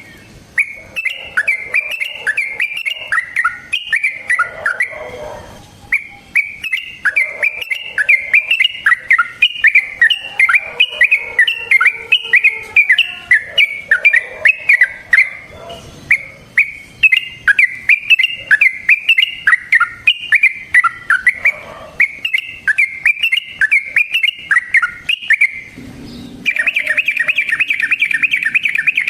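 Yellow-vented bulbul (trucukan) singing loudly: long runs of quick, bubbly chirping notes with a couple of short breaks, going into a fast continuous trill near the end.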